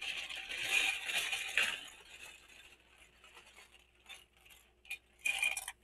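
Small plastic Mega Construx building pieces clattering as they are poured out of a plastic bag onto the table: a dense rattle for about two seconds, then scattered clicks of single pieces. A plastic bag rustles briefly near the end.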